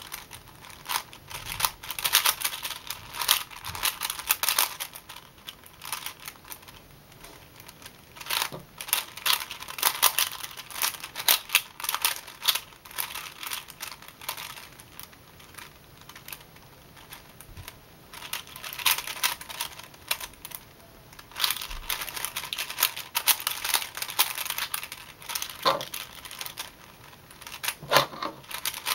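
A 4x4x4 puzzle cube being turned fast by hand: rapid plastic clicking and clacking of the layer turns, in bursts with short pauses between them.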